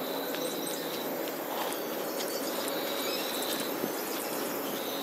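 Woodland ambience: insects trilling, a high even trill about a second long repeating every couple of seconds, with a few short high chirps over a steady rushing background.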